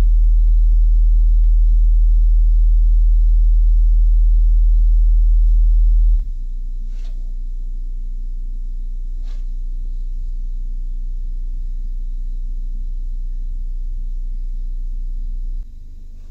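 Dayton Audio Ultimax 15-inch subwoofer playing steady low sine test tones from a tone-generator app. A loud 40 Hz tone steps down about six seconds in to a quieter 30 Hz tone, and near the end steps down again to a still quieter 25 Hz tone.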